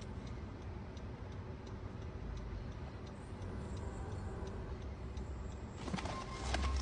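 Faint, regular ticking over a low steady background, with a louder burst of noise near the end.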